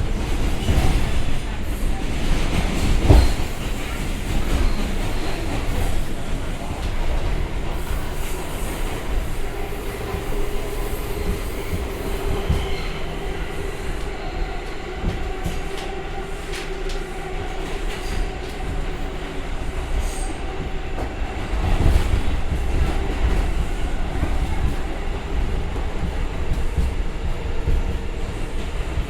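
Inside a New York City subway car riding underground: a steady deep rumble of wheels on rails, with a few louder knocks and a held tone that steps higher about halfway through.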